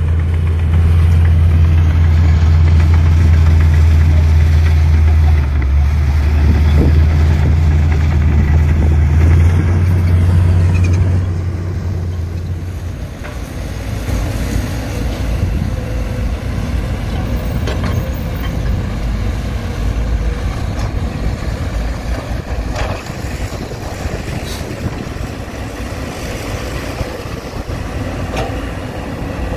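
Heavy diesel engine of earthmoving machinery running: a loud, steady low drone for the first eleven seconds or so, then it drops to a quieter, rougher rumble.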